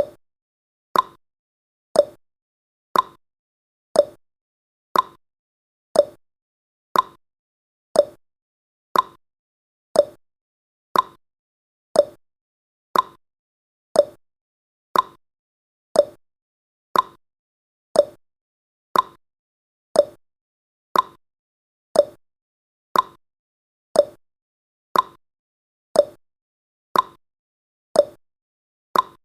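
Clock-style ticking sound effect of a countdown timer, one short, sharp tick every second at an even pace.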